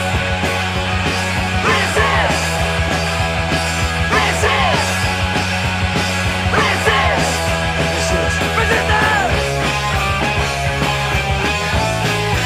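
Post-punk rock band playing an instrumental passage: steady bass notes and drums, with a high falling, swooping figure that comes round about every two and a half seconds.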